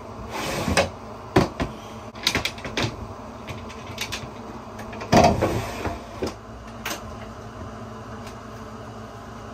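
Knocks, clunks and scrapes of a shop vacuum being brought down into a boat cabin and a wooden engine-room access panel being lifted off, with the loudest thump about five seconds in, over a steady low hum.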